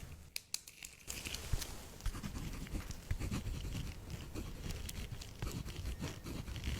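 Close-miked rustling and crinkling handling noise full of small crackles, starting about a second in after a few separate clicks.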